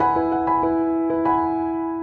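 Background music: a slow melody of struck keyboard-like notes, a new note every half second or so, over a steady held note.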